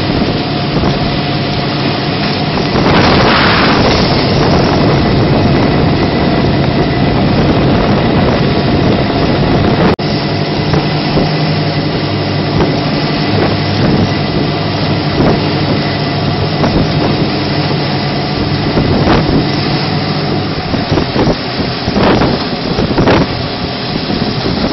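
Rigid inflatable rescue boat's engine running steadily at speed, with wind buffeting the microphone and water rushing past the hull. Gusts of wind noise swell a few times, strongest a few seconds in and again near the end.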